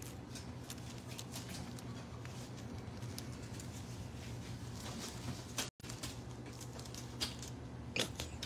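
Soft, irregular clicking and pattering from baby bobcats feeding, over a steady low hum. The sound drops out for an instant about two-thirds of the way through.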